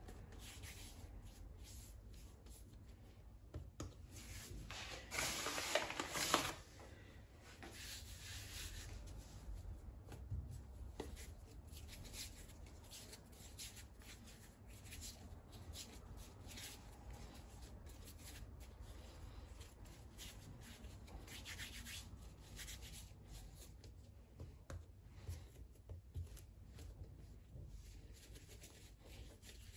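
Hands working bread dough on a work surface: a run of soft rubbing, scraping strokes, louder for a second or so about five seconds in.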